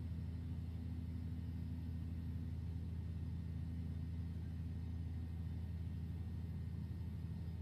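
Steady low drone of industrial plant machinery, even and unchanging throughout.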